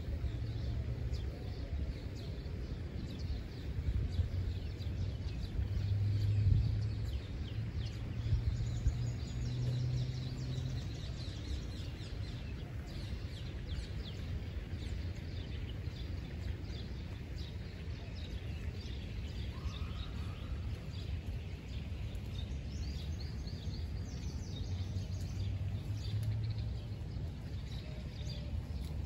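Wind buffeting the microphone as a low rumble, gusting louder about six seconds in and again around ten seconds, with small birds chirping repeatedly in the background.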